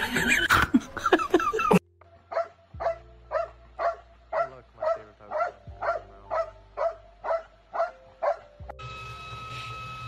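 A dog barking in a rapid, evenly spaced run of about fourteen short barks, a little over two a second. Before it, a loud jumble of other sound cuts off abruptly; after it, a steady hum takes over.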